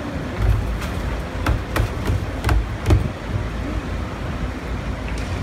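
Rear-loader garbage truck's engine running steadily, with about five sharp knocks and bangs in the first three seconds as a litter bin's inner container is tipped and banged against the rear hopper to empty it.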